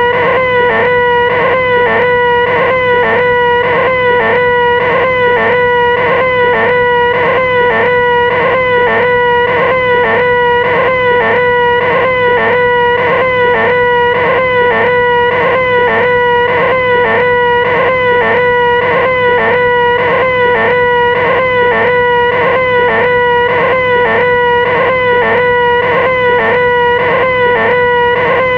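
A loud, high-pitched 'ahhh' in a person's voice, held on one steady pitch without a break and wobbling a couple of times a second: the 'most annoying sound in the world' gag.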